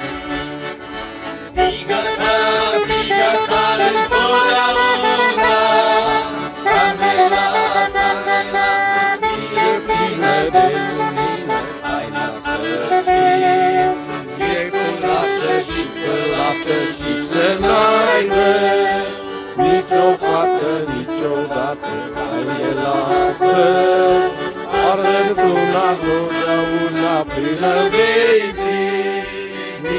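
Accordion playing a traditional folk-style tune.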